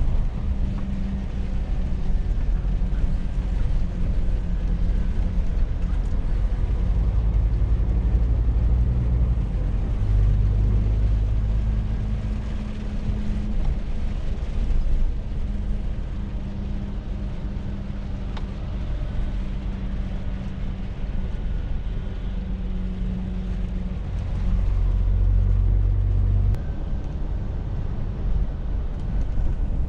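Scania truck's engine and road noise heard from inside the cab while driving: a steady low drone that swells louder a few times.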